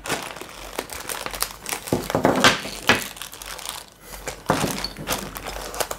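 Clear plastic bags of Playmobil pieces crinkling irregularly as they are handled and shifted on a table, with a brief lull about four seconds in.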